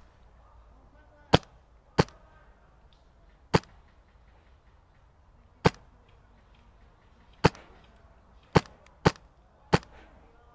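Airsoft MTW HPA rifle fired semi-auto, eight single shots at uneven intervals, each a sharp crack. Three of the shots come in quick succession near the end.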